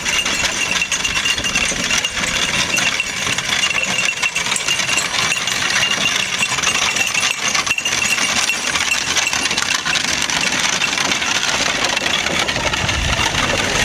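Horse-drawn buggy moving along a gravel drive: hooves and wooden spoked wheels crunching on gravel and the cart rattling, a steady jumble of small clicks, with a thin steady high tone underneath.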